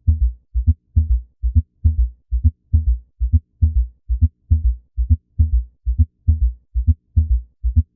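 Recorded heart sounds in a gallop rhythm: low thuds in repeating groups, a little more than one beat a second, each beat carrying an extra low-pitched filling sound (S3 or S4) besides the usual two heart sounds. A gallop of this kind is a sign of abnormal ventricular filling.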